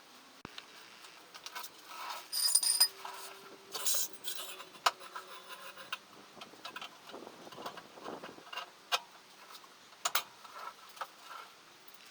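Metal tools and parts clinking and clicking on and off, with one short ringing metallic clink about two and a half seconds in.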